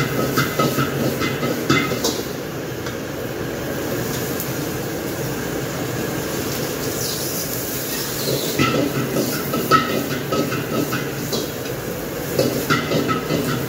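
Restaurant wok burner running with a steady rushing noise while food sizzles in a carbon-steel wok. A metal utensil clanks and scrapes against the wok in quick runs near the start and again through the second half.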